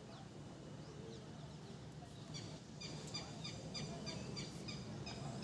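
Faint bird chirps: at first scattered, then from about two seconds in a steady run of short, high, downward-sliding chirps about three a second.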